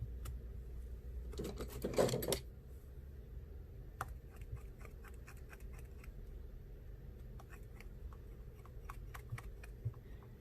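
Small parts and tools of a smartphone being handled during a screen repair: a brief scraping rustle about two seconds in, then a scatter of light clicks and taps.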